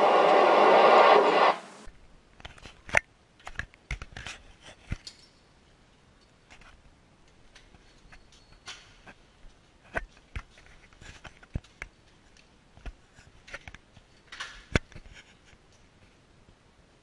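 A loud, dense sound that cuts off suddenly about two seconds in, followed by scattered sharp clicks and knocks, the loudest at about three, ten and fifteen seconds.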